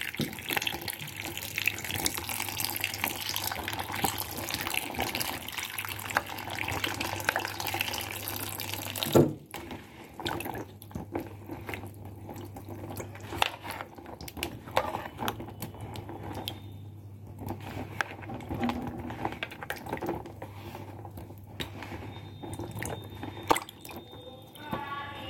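Tap water running while lemons are washed by hand in a sink. The flow is shut off about nine seconds in with a knock, followed by scattered drips and knocks as the wet lemons are handled.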